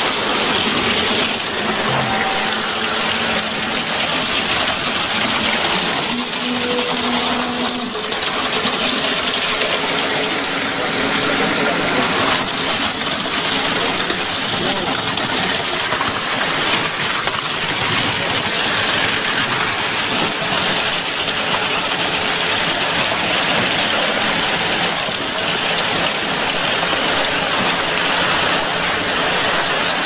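Concrete pump running while concrete pours from the boom hose into ICF wall forms: a steady rushing noise with a faint engine hum under it.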